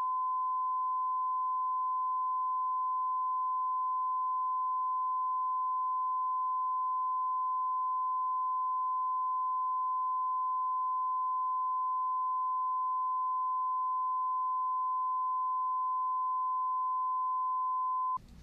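Censor bleep: a single steady high-pitched beep held unbroken for about eighteen seconds, cutting off abruptly near the end. It blanks out the reviewer's speech.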